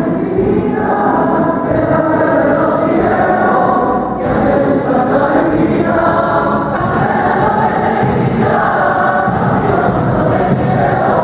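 Many voices singing a religious hymn together, steady and continuous.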